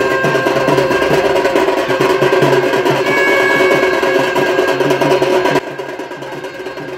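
Loud rhythmic festival drumming, the melam of the procession, with a held high note over it at times. It drops suddenly to a lower level about five and a half seconds in.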